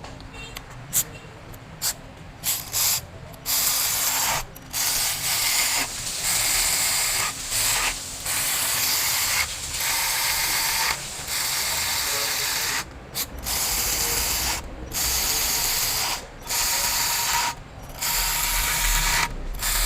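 Ratchet wrench working in repeated bursts of about a second each, with short pauses between them, after a few separate clicks in the first seconds.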